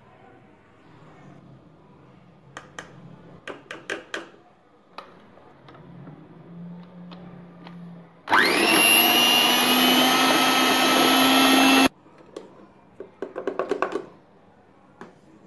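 Electric hand mixer with wire beaters mixing butter and flour in a bowl. It starts with a rising whine, runs steadily for about three and a half seconds and cuts off suddenly. Light clicks and knocks come before it, and another quick cluster of clicks follows.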